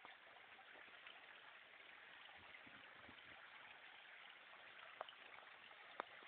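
Near silence: a faint steady hiss of outdoor background, with two light sharp clicks near the end.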